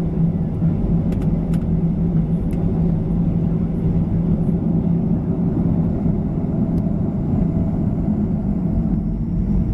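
Cabin noise of a Boeing 737-900ER on the ground, its CFM56-7B jet engines at low power, heard from inside the cabin over the wing: a steady low rumble with a constant low hum. A few faint clicks come about a second in.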